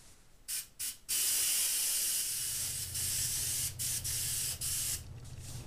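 Airbrush spraying paint in a steady hiss: two short bursts, then one long spray of about four seconds with a couple of brief breaks, stopping about five seconds in.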